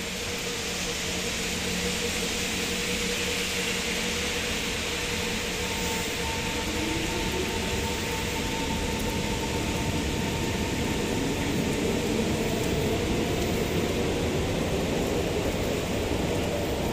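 Steady rain with the rumble and whine of an approaching SMRT C151 train slowly building as it nears the platform.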